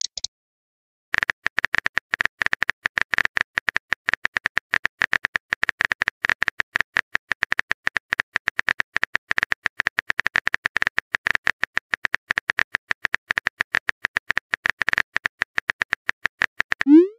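Rapid, irregular clicking of a phone's on-screen keyboard, one tap per keystroke as a text message is typed. It starts about a second in after a brief silence.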